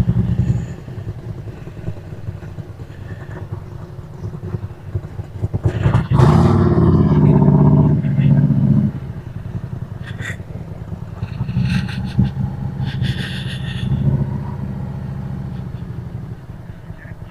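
Harley-Davidson Road Glide Special's V-twin engine running at low revs, then revving up and pulling away about six seconds in, loud for a few seconds before settling to a steadier run.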